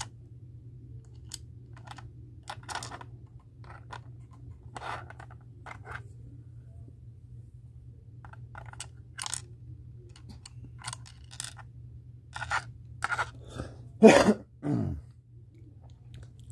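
Small clicks, taps and scrapes of tiny diecast metal figures being picked up and set down on a miniature diorama shelf, with one sharp click at the start. Near the end comes a short, louder low vocal sound that falls in pitch, like a grunt or hum, over a faint steady hum.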